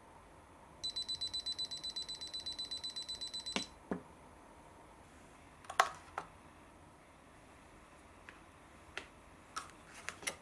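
A home cup-noodle vending machine's three-minute timer beeping rapidly at a high pitch, about seven beeps a second for some three seconds: the countdown has run out and the noodles are ready. The beeping cuts off with a click. Light plastic clicks and taps follow as small toy figures are lifted off the cup lids.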